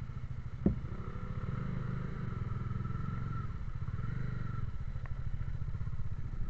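Small motorcycle engines running at low speed as the bikes crawl over a rough dirt track, a steady pulsing rumble. A single sharp knock sounds about a second in, with a couple of lighter ticks later.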